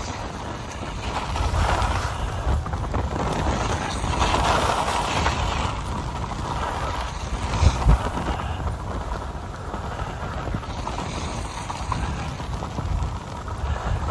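Skis sliding over snow in swelling hisses that rise and fall every few seconds, with wind rushing over the microphone from downhill speed.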